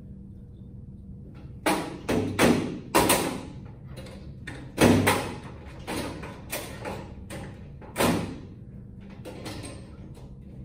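Sharp knocks and clacks of hands and cable against a sheet-metal 2x2 troffer fixture as a linking cable is fitted and tucked between two LED light bars. About a dozen strikes, each ringing briefly, the loudest about five and eight seconds in.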